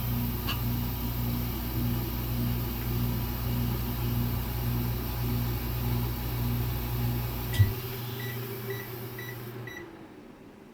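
An electric appliance running with a steady, slightly pulsing hum. About three-quarters of the way through there is a click and part of the hum stops, then five short high beeps sound and the rest of the hum shuts off near the end, an end-of-cycle signal.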